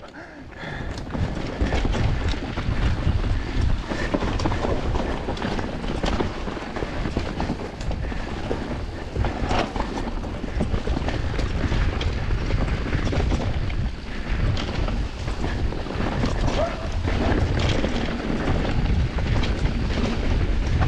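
Mountain bike descending a rough enduro trail: tyres rumbling over dirt and stones, with the bike rattling and clattering in quick irregular knocks, and wind buffeting the microphone.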